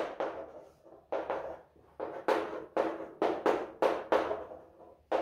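Chalk drawing short lines on a chalkboard: a quick run of short scraping strokes, each starting with a sharp tap and trailing off, about two a second, as the sides of hexagonal rings are drawn.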